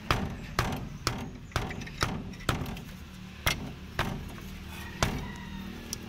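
A cylindrical wire-mesh air filter element being knocked against the compressor's steel frame: about ten sharp knocks, mostly about two a second, to shake the dust out of it.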